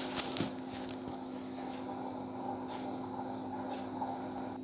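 Fingers tearing pieces off an onion uttapam on a steel plate: a few faint soft clicks and rustles over a steady low hum.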